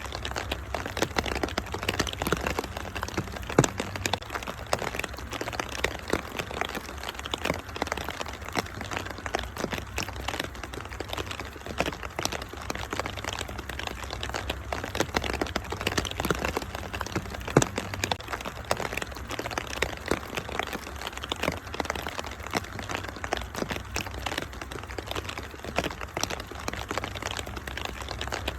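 Wood fire crackling, with dense irregular pops and a few sharper snaps, over a steady hiss of rain and a low rumble.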